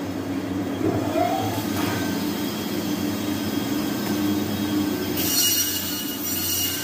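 Bizerba meat band saw running as mutton is pushed through the blade, with a steady machine hum. A harsher high-pitched hiss starts suddenly about five seconds in as the blade cuts.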